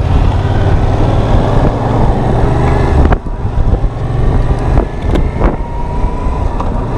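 Yamaha FZ-07's parallel-twin engine running, a steady low drone that changes abruptly about three seconds in and continues weaker.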